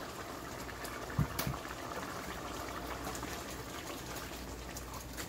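Chicken and broth simmering and bubbling in a large stainless steel pot, with a wooden spoon stirring through it; a single knock about a second in.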